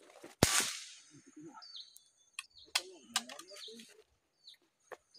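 A forest bird calling over and over, each call a short high note that drops in pitch. A single sharp, loud crack comes about half a second in, and a low voice murmurs near the middle.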